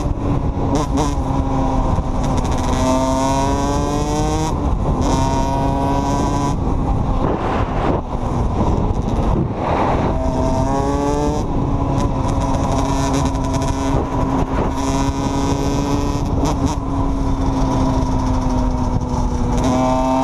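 Dirt bike engine running at speed, heard from on board, its revs climbing several times as it accelerates, with wind rushing over the microphone.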